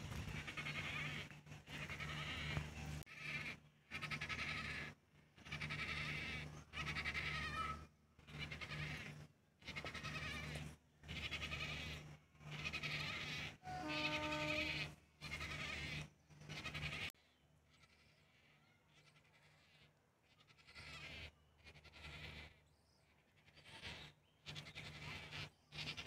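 A flock of large wading birds in an aviary calling, with repeated harsh cries of about a second each and short gaps between them. One clear pitched call stands out about fourteen seconds in, and after about seventeen seconds the calling thins out and becomes fainter.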